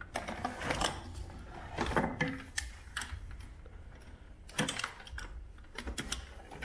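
Irregular clicks and light metallic clatter of hand tools being worked on the car's cooling-system fittings, over a low steady hum.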